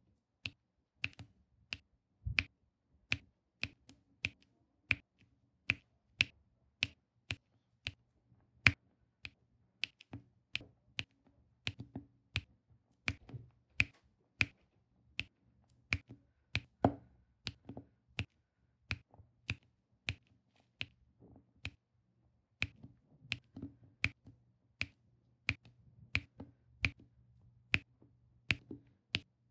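Diamond-painting pen setting round resin drills onto the canvas: a steady string of sharp little clicks, about one and a half a second, over a faint low hum.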